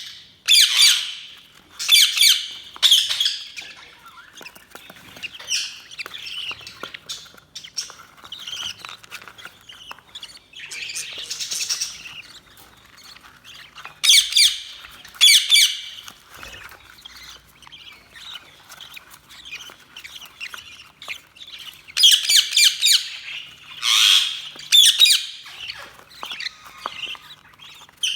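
Budgerigars chirping and chattering, with loud harsh squawking calls coming in clusters every several seconds over softer continuous warbling.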